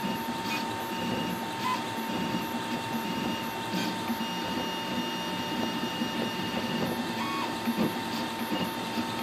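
MakerGear M2 FDM 3D printer at work: its stepper motors whir in short, changing tones as the print head and bed move back and forth, over a steady hum.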